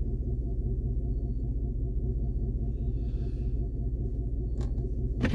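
Truck engine running, heard from inside the cab as a steady low rumble with a fine even pulse. Two short light clicks come near the end.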